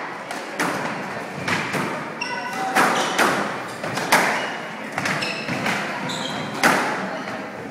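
Squash rally: the ball cracking off rackets and walls about once a second, with short squeaks from shoes on the wooden court floor between the shots.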